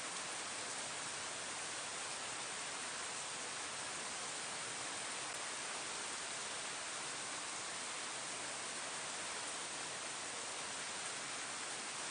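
Steady rain falling on leaves: an even, unbroken hiss with no single drops standing out.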